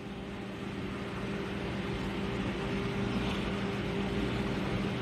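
A steady mechanical hum with a low drone, slowly growing louder.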